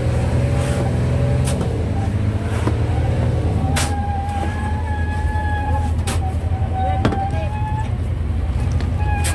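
A fishing boat's engine drones steadily and low, with shovels striking and scraping crushed ice on the deck now and then. A steady, slightly wavering high tone comes in about four seconds in.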